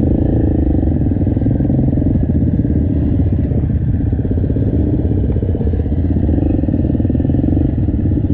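Dirt bike engines running steadily, the loudest being the camera rider's KTM 350 single-cylinder four-stroke, with other trail bikes around it.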